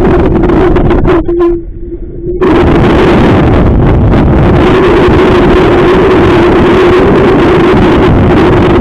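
Strong wind buffeting the microphone over a steady hum from the boat's motor. Both drop away briefly about two seconds in, then return.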